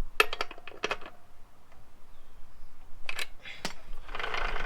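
A few sharp metallic clicks, then near the end a fast rattling whirr of a new O-ring motorbike chain running over its sprockets as the rear wheel is spun by hand.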